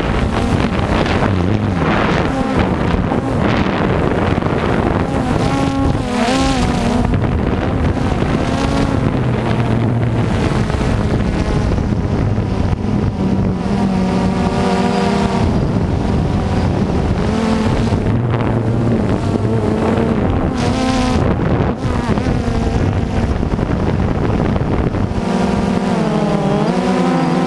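Drone propellers and motors buzzing steadily, the pitch shifting up and down as it manoeuvres.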